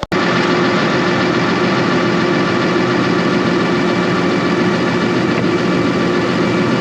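Heavy diesel engine of farm machinery running steadily at constant revs, with a steady whine over the engine note. It starts abruptly just after the opening and holds unchanged.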